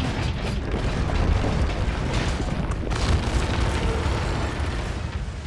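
A high-rise building collapsing: a continuous deep rumble full of crashing debris, with heavier crashes about a second in and again near three seconds.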